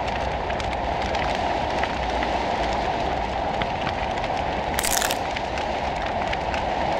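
Sound-design soundtrack of a projection-mapping show: a steady noisy texture scattered with many small crackling clicks, with a short burst of hiss about five seconds in.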